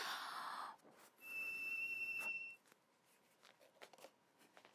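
A puff of breath blown into a toy whistle, then the whistle sounding a steady, high, single tone for about a second and a half before it stops.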